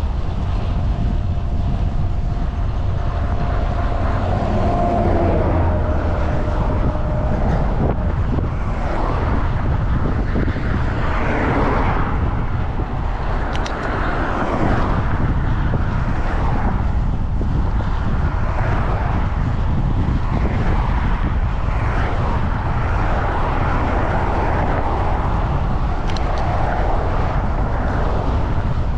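Steady wind rush on the microphone of a moving bicycle. A steady whining tone sounds for the first six or seven seconds.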